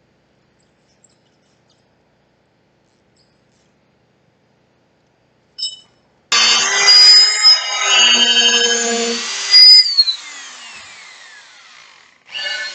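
Near silence, then a hammer drill boring a hole runs loudly from about six seconds in. It is released near ten seconds and its motor winds down in falling pitch, then it starts drilling again near the end.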